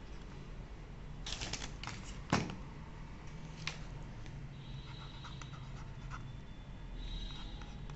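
Wacom One pen tablet being written on: the plastic pen nib taps and scratches across the tablet surface in short strokes, with a sharper tap about two seconds in and a run of light scratching in the second half.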